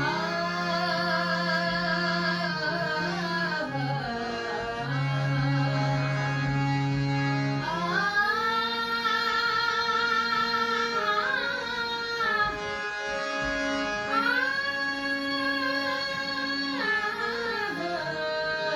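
A woman singing a Gujarati devotional bhajan in long, drawn-out phrases of held, wavering notes, over an instrumental accompaniment of steady low notes.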